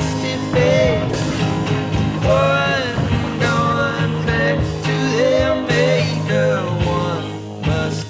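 Background music: a guitar-backed rock song with a melody line that slides in pitch over a steady bass and chords.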